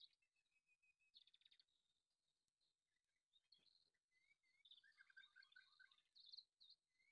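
Faint birds chirping: scattered short high calls, with a quick trill just after a second in and a run of short notes about five seconds in.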